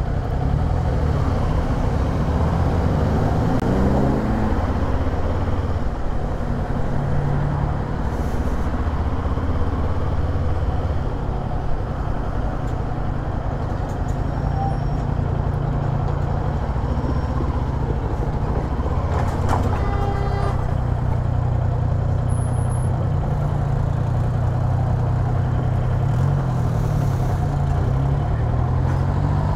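Kawasaki Z400 parallel-twin engine running while the bike is ridden. Its pitch rises as it accelerates about three seconds in and again near the end.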